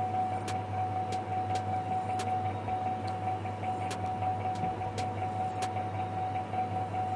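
Steady background hum with a constant high-pitched whine, and scattered faint light clicks, like small taps from handling parts on a workbench.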